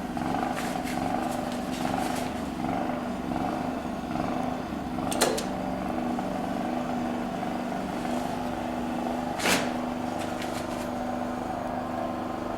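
Steady mechanical hum, with two sharp clicks about five and nine and a half seconds in.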